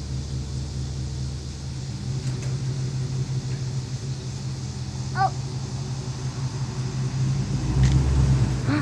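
Engine of a vehicle pulling a shed across the ground, running steadily under load, then growing louder and deeper near the end as it pulls harder and the shed starts to move.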